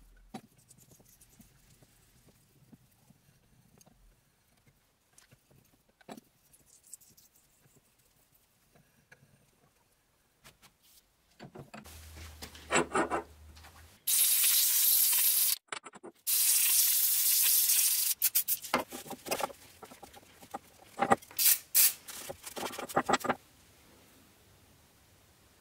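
Mostly quiet at first, then two loud bursts of hissing of about a second and a half each. After them comes a run of sharp metallic clicks and knocks as a machined steel plate is handled on a steel surface.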